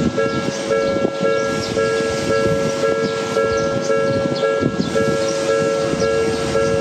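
Japanese level-crossing warning bell ringing its "kan-kan" alarm: two steady tones alternating in an even rhythm about twice a second, with rattling noise underneath.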